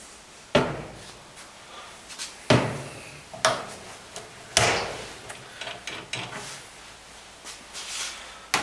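Metal clunks and clicks from a steel common rail injector clamping device as its head is swung on the vertical shaft and its clamp is worked. Four sharp clunks come in the first five seconds, followed by lighter clicks.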